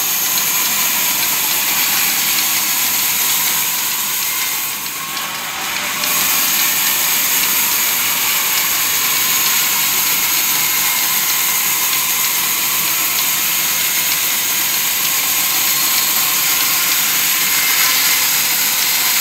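Large belt-driven sawmill saw ripping a long wooden plank lengthwise: a steady, high-pitched cutting noise over the machine's running hum. It eases for about a second around five seconds in, then carries on steadily.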